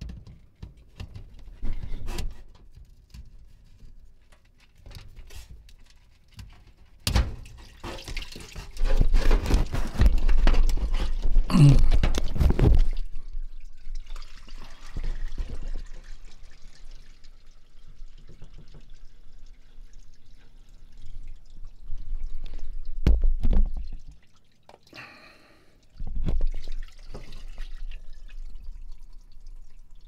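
Water dripping and trickling from a front-load washing machine that is full of water it could not drain, mixed with knocks and clunks of hands and tools on the machine. There is a louder spell of clattering about eight seconds in, lasting some five seconds.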